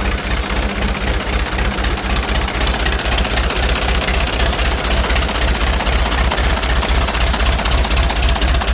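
Freshly rebuilt Ford 6600 tractor's three-cylinder diesel engine idling steadily, with a fast, even diesel clatter.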